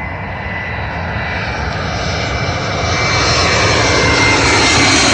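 A jet airliner on landing approach passing low overhead, its engine roar growing steadily louder, with a whine that slides down in pitch in the second half.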